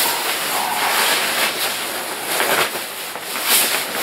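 Continuous rustling of a coat's fabric as it is pulled off and handled, swelling and easing in loudness.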